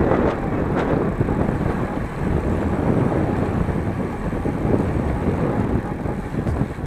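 Wind rushing over the microphone while riding at racing speed on a bicycle: a steady, dense rush strongest in the low range, with a faint click about a second in.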